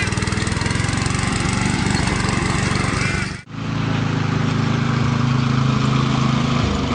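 Lawn mower engine running with a fast, even pulse. The sound breaks off abruptly about three and a half seconds in and resumes at once, with a slightly different, steadier hum.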